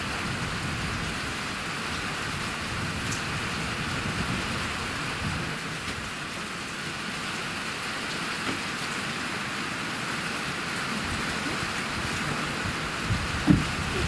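Steady hiss of rain, with gusty wind rumbling on the microphone. There is one short, sharp knock near the end.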